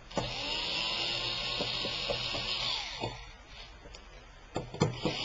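Power screwdriver running as it backs out small screws from a laptop's screen assembly. It runs for about three seconds, stops, gives a few sharp clicks, and starts running again near the end.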